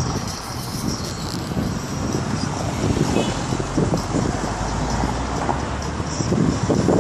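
Road noise of a car rolling slowly over a brick-paved street, heard from inside the car: a steady rush with an uneven low rumble from the tyres on the bricks.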